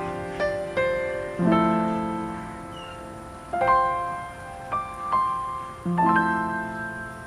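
Slow piano music: single notes and chords struck and left to ring and fade, with a new low chord about every two seconds.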